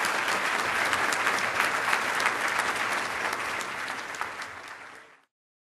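Audience applauding: dense, steady clapping that thins out near the end and then cuts off suddenly.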